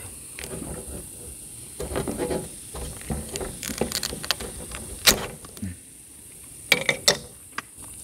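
Scattered clicks and knocks of camp cookware being handled and a hot lid being worked open, with one sharp knock about five seconds in and a quick cluster of clicks near seven seconds.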